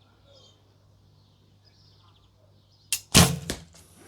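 A shot from a recurve bow with Nik'a S2 Windstorm ILF limbs, about three seconds in: a sharp click, then the loud snap of the string's release as the arrow leaves, dying away within half a second.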